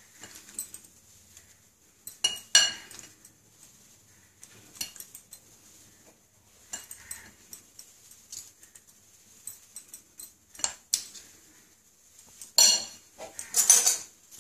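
Metal spoons clinking and tapping against glass bowls while chicken pieces are spooned from the marinade onto a flour and biscuit-crumb coating. The clinks are scattered, with a louder, busier cluster near the end.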